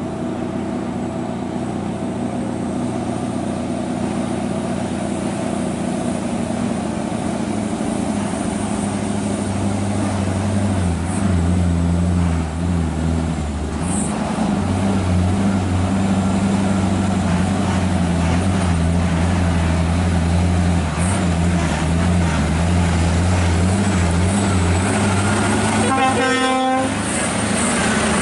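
Scania R580 trucks' V8 diesel engines with open-pipe exhausts running in convoy, getting louder as the trucks come close. There is a short air-horn blast about two seconds before the end.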